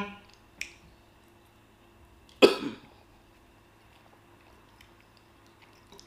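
A single short cough about two and a half seconds in, with a faint click about half a second in.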